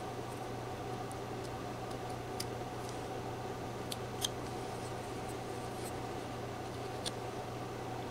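Pocket knife whittling a small wooden Scottie dog figure: a few short, crisp ticks of the blade slicing off small chips, spaced irregularly, over a steady low background hum.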